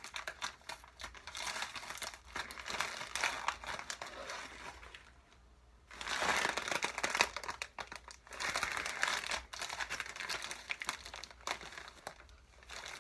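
Packaging of a mailed parcel crinkling and crumpling as hands struggle to pull it open, with a short lull about five seconds in before the crinkling resumes.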